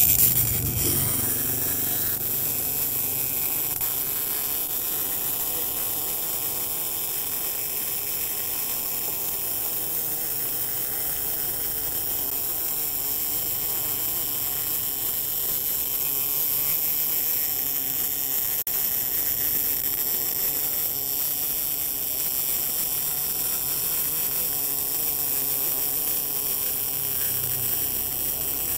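MIG welding arc from a Smartmig 265 Tenya welder laying a continuous bead on thin steel plate: a steady, even buzzing hiss.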